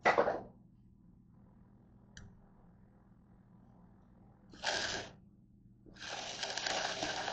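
A man sneezes once, loud and sudden, just as he leans toward the camera. A few seconds later there are two hissing, rushing noises, the second lasting about two seconds.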